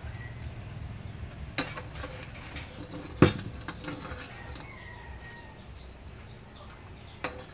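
Metal spoon clinking against a ceramic bowl as a fish-sauce dipping sauce is stirred: a few sharp clinks, the loudest about three seconds in.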